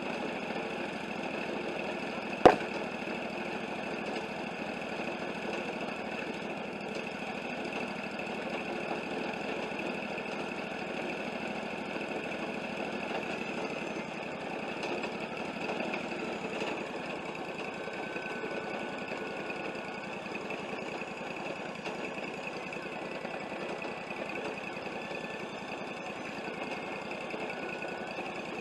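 Wood-Mizer LT40 portable bandsaw mill's engine running steadily, with one sharp click about two and a half seconds in.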